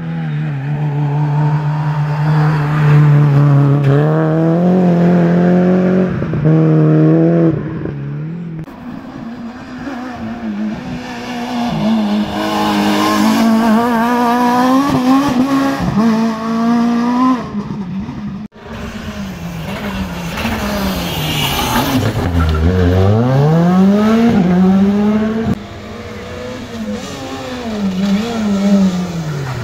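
Rally car engines at full effort through a bend, the pitch climbing through the gears, dropping on lifts and downshifts and climbing again: first a Renault Clio rally car, then, about two-thirds of the way in, a Fiat Seicento rally car taking a hairpin.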